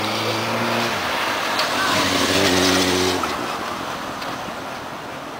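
Road traffic: a car's engine runs until about a second in, then another vehicle passes, growing louder and fading away after about three seconds.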